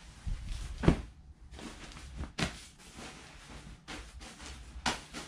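Nylon ripstop shell of a down sleeping bag rustling as the bag is flipped over and laid out flat, with several brief swishes, the loudest with a dull thump about a second in.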